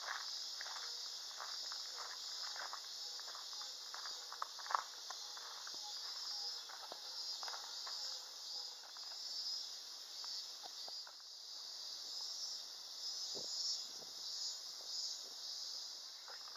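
Steady high-pitched chorus of insects chirping, with scattered light clicks and taps, most frequent in the first half.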